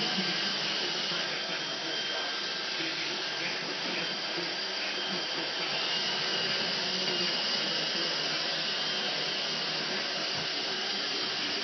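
Roomba robot vacuum running, a steady whir with faint high tones that holds unchanged throughout.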